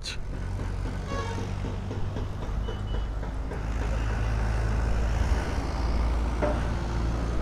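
A motor vehicle's engine running steadily with a low hum. It grows somewhat louder through the middle and eases slightly near the end.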